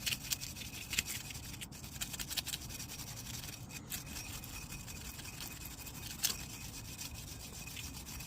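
A brush scrubbing loose surface rust off a brake pad in quick, irregular scratchy strokes.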